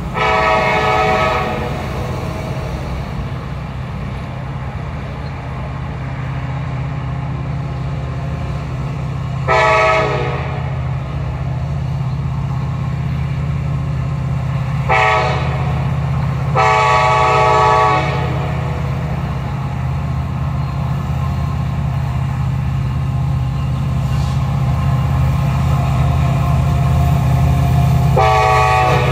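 Approaching Norfolk Southern SD70ACe diesel locomotive sounding its air horn as a chord of several tones: a long blast at the start, two short blasts, another long blast, and a fresh blast beginning near the end. Under the horn a steady low rumble grows gradually louder as the train draws closer.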